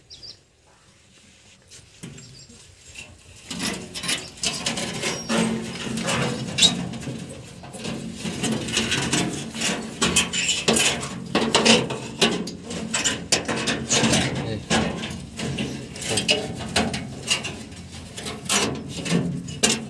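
Hand work on a metal mesh tractor grille: irregular clicking, scraping and rattling of metal being cut, bent and fitted. It starts about three and a half seconds in, after a near-quiet start.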